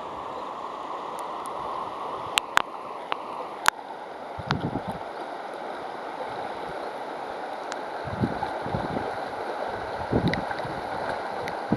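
A shallow river riffle babbling steadily as the current tumbles over stones, churning air into the water. A few sharp ticks come two to four seconds in, and several short low gurgles follow later.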